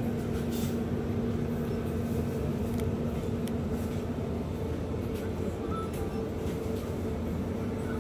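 Steady low rumble with a constant droning hum, and a few faint light clicks.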